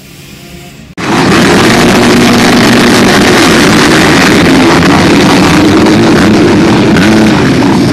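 A pack of motocross bikes launching off the start gate together at full throttle, many engines running flat out at once. The sound comes in suddenly about a second in and stays very loud and steady.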